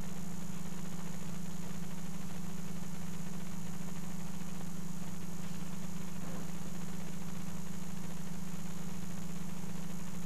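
Steady, unchanging low machine hum.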